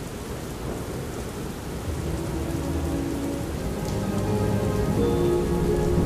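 Thunderstorm recording: steady heavy rain with thunder rumbling and building in the low end over the second half. Soft music of the song runs faintly underneath.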